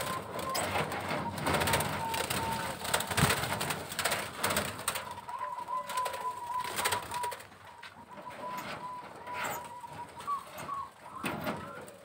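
Zebra doves (perkutut) cooing in an aviary: a thin, steady trilling note held for several seconds, which breaks off and returns about five seconds in. Scattered clicks and knocks run through the first half.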